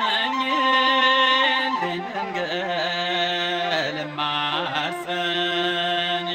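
An Amharic Ethiopian Orthodox hymn (mezmur) sung in long held, ornamented notes over musical accompaniment.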